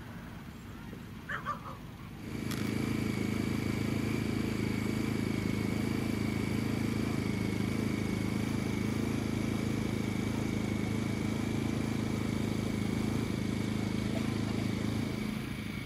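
A steady engine hum at constant speed, with a thin high whine over it, starting about two seconds in and fading just before the end.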